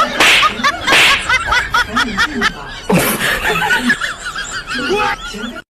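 A person laughing hard in fast repeated ha-ha bursts with sharp breaths between, cutting off suddenly near the end.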